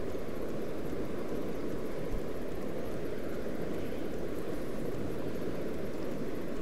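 Steady rushing of river water breaking over rocks, an even noise with a low rumble beneath it.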